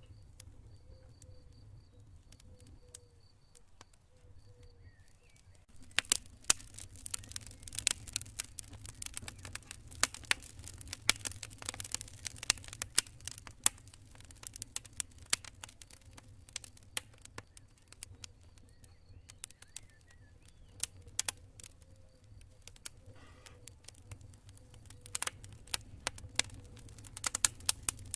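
Campfire crackling, with sharp pops and snaps that grow dense and loud about six seconds in. Faint cricket chirping runs through the quieter stretches.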